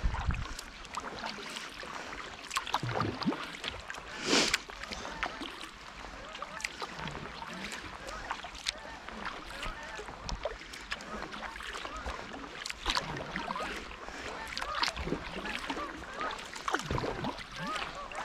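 Sea kayak paddling on calm water: paddle blades splashing, with water trickling and dripping off them. A louder splash comes about four seconds in.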